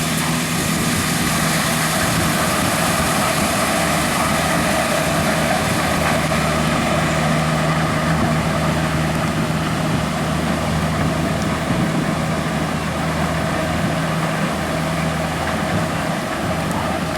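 Corn combine harvester with a built-in sheller running steadily: a constant engine hum under a dense, even machinery noise.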